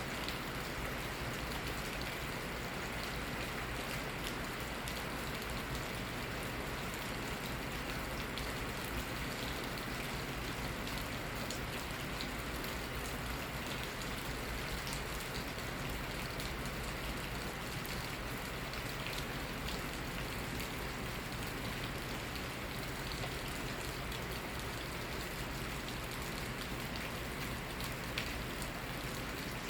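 Steady rain falling, an even hiss with many small drops ticking on surfaces, without a break.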